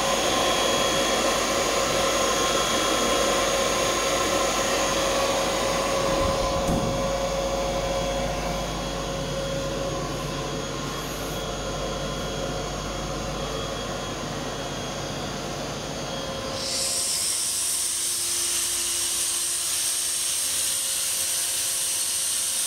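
Kaeser SX 6 4 kW rotary screw air compressor running with a steady mechanical drone and hum. About two-thirds of the way through, the low running rumble drops away and a steady high hiss takes over.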